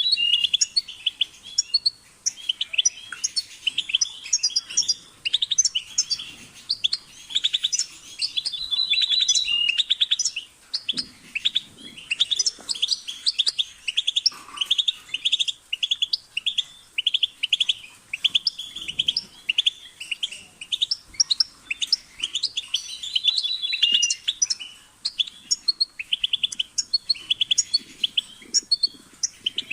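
European goldfinch singing a continuous, rapid twittering song of chirps, trills and short buzzy notes, broken by brief pauses.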